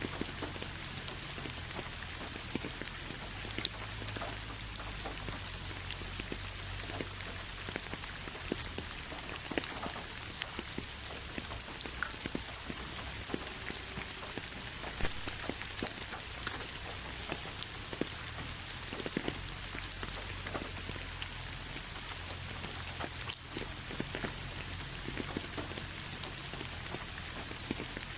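Steady rain falling, a constant hiss with many scattered drops ticking on a surface, over a low rumble.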